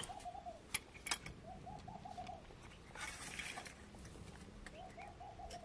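Pigeon cooing in three short phrases of quick, evenly spaced notes, with two sharp clicks about a second in and a brief rustle around three seconds in.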